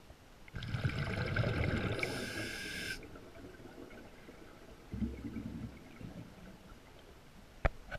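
A diver breathing underwater through a scuba regulator: a loud burst of bubbling and hissing lasting about two and a half seconds, then a shorter rumble of bubbles about five seconds in. A single sharp click sounds near the end.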